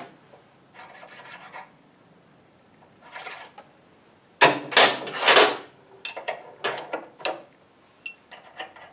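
Metal scraping and rubbing as the steel parts of a lathe spindle stop are handled with hand tools: short scrapes, a louder run of scraping about halfway through, then a scatter of small metal clicks near the end.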